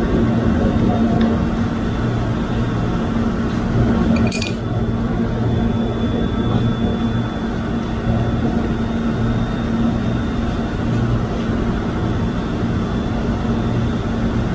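A steady low mechanical hum, with one sharp click about four seconds in.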